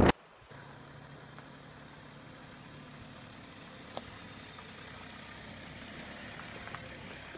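Toyota Hilux pickup's engine idling steadily as a low, fairly quiet hum, with a single sharp click about four seconds in.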